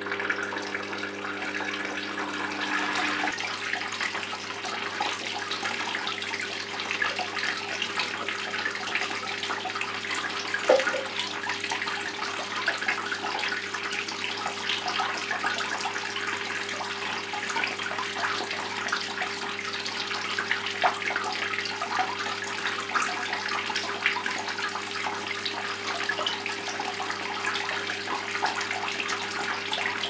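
Homemade tabletop waterfall fountain running: thin streams of water fall from a tube into the basin below in a steady splashing trickle, with a steady low hum underneath.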